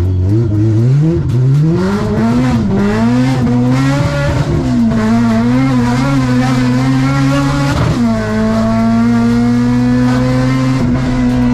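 Car engine revving hard, its pitch climbing and wavering up and down, then dropping briefly about eight seconds in before holding at a steady high pitch.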